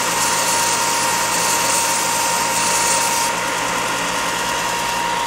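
Bench belt sander running with a steady whine as a balsa tail-surface frame is pressed against its 60-grit belt, adding a sanding hiss. The hiss stops about three seconds in when the piece is lifted, and the motor keeps running.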